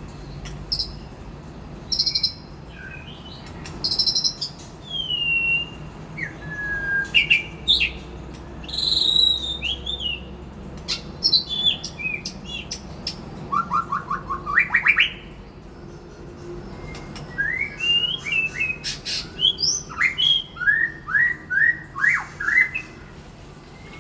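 White-rumped shama singing a varied song of clear whistled phrases, slurred notes and sharp clicks, with quick runs of rising notes, one about halfway through and several near the end.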